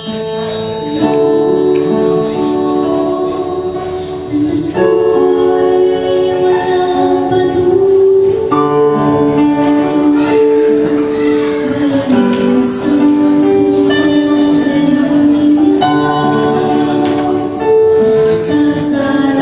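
A woman singing a slow Tagalog Christian song into a microphone over musical accompaniment, the melody moving in long held notes.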